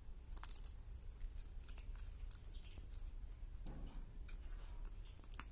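Falcon tearing and pulling at raw quail meat on a leather falconry glove: a few sharp, irregular clicks and snips of beak on flesh and leather.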